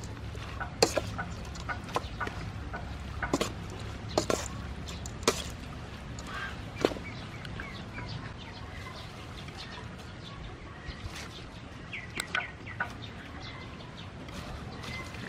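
Sea snail shells clicking and clattering against a stainless steel bowl as the salad is tossed by hand: irregular sharp clicks, most of them in the first half, with a few short pitched calls in the background near the end.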